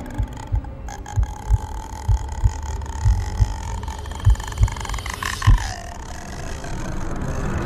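Horror film soundtrack: a low heartbeat-like thumping that comes in pairs, about one pair a second, under a held high tone that slides down about five and a half seconds in.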